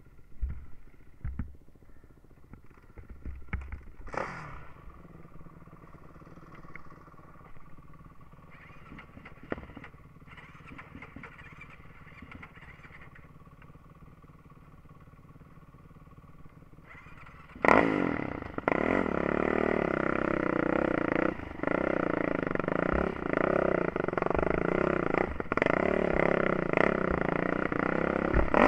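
Yamaha YFZ450 ATV's single-cylinder four-stroke engine, running low with a few knocks and clatters. About eighteen seconds in the throttle opens sharply and the engine revs loudly under load, with brief dips as the throttle is eased.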